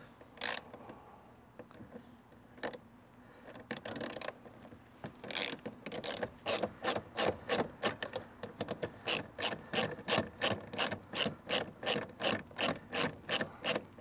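A hand socket ratchet backing out a 10 mm bolt. There are a few scattered clicks at first, then from about five seconds in a quick, even ratcheting of the pawl, about three strokes a second.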